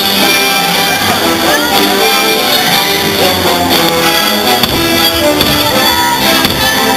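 Fireworks-show soundtrack music played loudly over loudspeakers, a steady wash of held instrumental notes.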